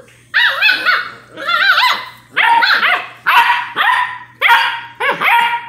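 Eight-week-old basset hound puppy barking in a quick run of short, high-pitched yaps, about two a second: play barking while the puppies wrestle.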